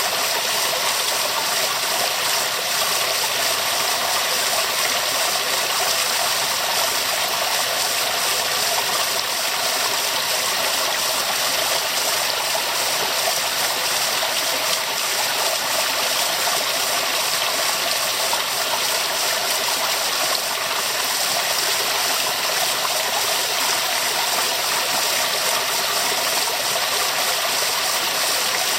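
Waterfall: water pouring and splashing in a steady, even rush that does not change.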